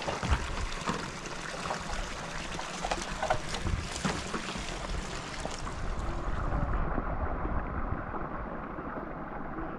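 Small portable gasoline water pump running with a steady rumble, with a few scattered knocks.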